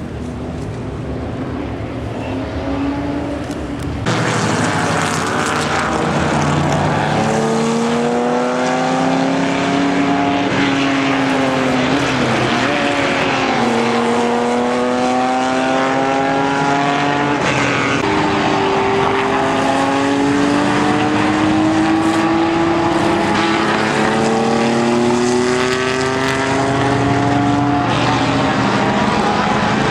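Several race car engines running hard at once, each climbing in pitch and dropping back as it shifts up through the gears. It gets suddenly louder about four seconds in.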